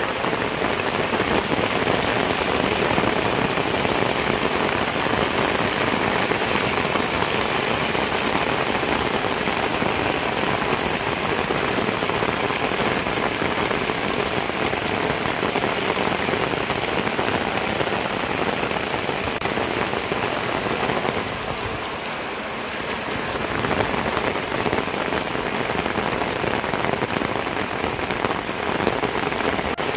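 Heavy rain pouring down steadily, splashing on wet ground and puddles, easing slightly for a moment about two-thirds of the way through.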